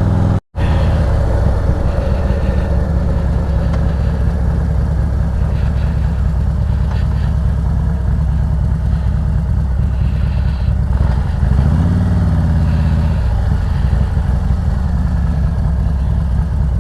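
Harley-Davidson Road Glide Special's V-twin engine running steadily while riding along at road speed. About twelve seconds in the engine note rises and falls once. The sound cuts out completely for a split second about half a second in.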